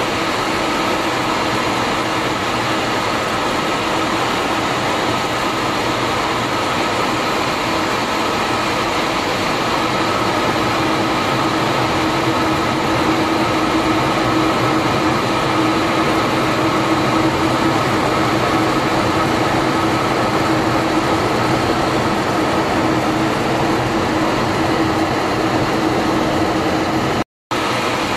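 Steady in-flight cockpit noise of a MiG-31 fighter: an even rush of engine and airflow with a constant hum under it. It cuts out for a moment near the end.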